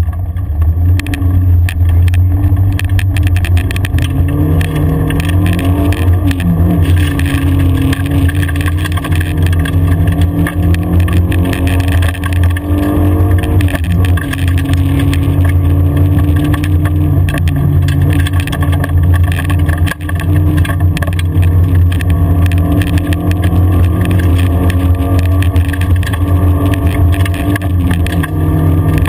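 Audi car's engine pulling hard along a loose gravel forest track, heard from inside the cabin. The revs climb and drop back several times at gear changes. Gravel crackles and rattles under the car throughout.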